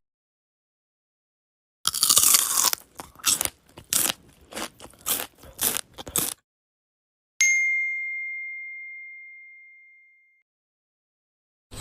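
A run of irregular crunching sounds lasting about four and a half seconds, then, after a short gap, a single clear high ding that rings out and fades over about three seconds.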